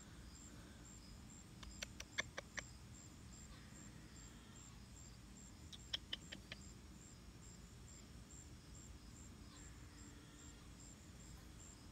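Quiet outdoor ambience: an insect chirping faintly in a high, even pulse about three times a second, with two short runs of sharp clicks about two and six seconds in.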